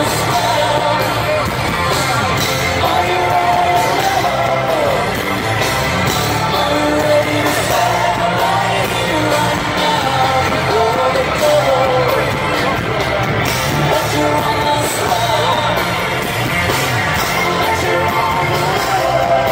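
Loud live rock band performance: a lead singer's voice over electric guitars, bass, keyboards and drums through a concert PA, recorded from within the crowd.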